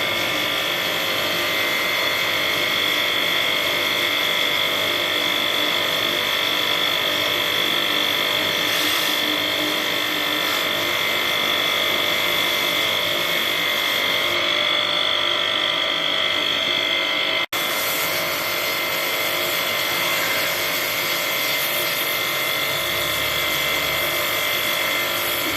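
A small electric motor running with a steady high-pitched whine over a noisy hiss. It cuts out for an instant about two-thirds of the way through.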